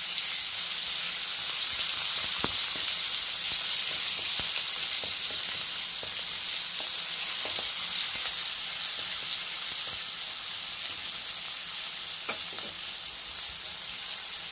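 Ginger garlic paste sizzling in hot oil in a pan as a spatula stirs it: a steady high hiss, loudest in the first half and easing slightly toward the end, with an occasional scrape of the spatula.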